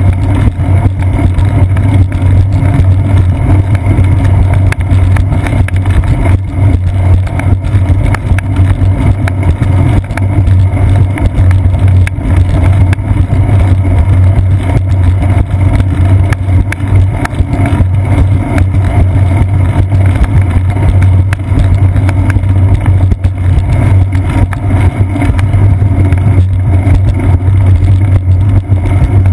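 Steady, loud rumbling ride noise from a seat-post-mounted GoPro on a moving bicycle: wind over the camera microphone and vibration from the concrete path coming through the mount.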